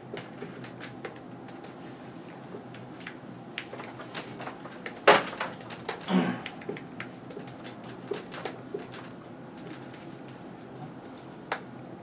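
Dry-erase marker working on a whiteboard: scattered light taps and clicks over a steady room hum, with a sharp knock about five seconds in and another near the end.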